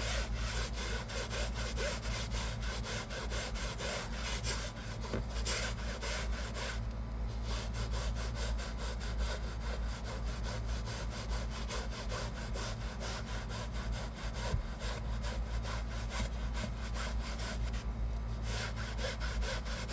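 Brush scrubbing fabric car-seat upholstery by hand in rapid, steady back-and-forth strokes.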